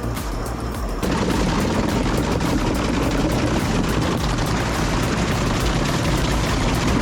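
Heavy wood-shredding machine working, a dense, rapid crackling of wood being broken up, louder from about a second in, with music under it.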